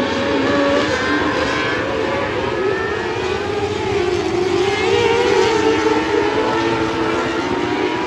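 Several small open-wheel dirt-track race cars lapping the oval together, their engines overlapping, each one rising and falling in pitch.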